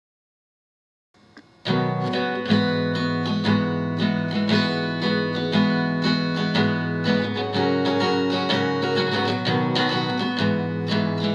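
Guitar playing the instrumental introduction to a song, strummed chords in a steady rhythm, starting about a second and a half in after silence.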